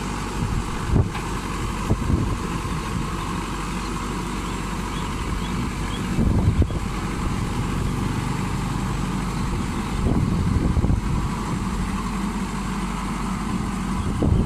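Diesel engine of a Crown Sumo tracked combine harvester running as the machine crawls down steel loading ramps off a truck, with a few short knocks and the engine swelling louder about six seconds in and again near ten seconds.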